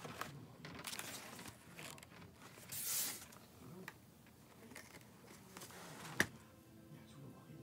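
Paper rustling as the pages of a spiral-bound photo album are handled and turned, with the loudest page flip about three seconds in. A single sharp click comes a little after six seconds.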